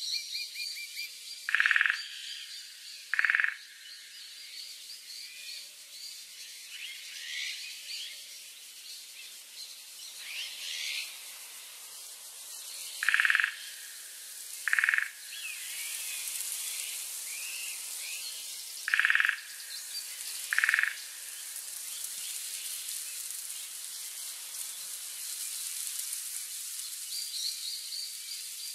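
Frog croaking in pairs, two short loud calls about a second and a half apart, three times over, over a steady background of faint chirping birds and insects at night.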